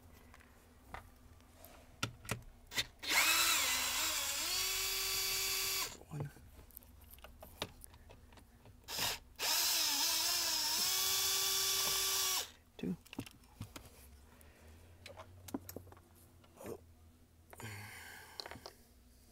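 A quarter-inch drive power gun spinning out two bolts, in two runs of about three seconds each. In each run the motor rises in pitch as it spins up, then holds steady until it stops. Small clicks and knocks of the parts being handled come between the runs.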